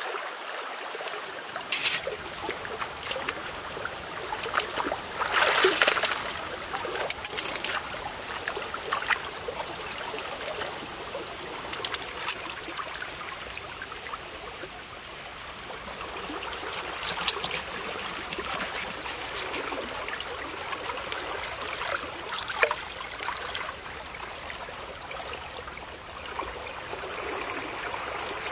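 Shallow stream running steadily over rocks, with splashes and sloshes now and then as a plucked whole chicken is washed and handled in the water, the loudest about five seconds in. A thin, steady high tone runs under it.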